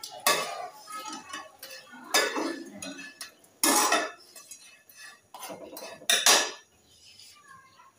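Metal pots, pans and utensils clattering: four loud clanks about two seconds apart, with lighter clinks between them.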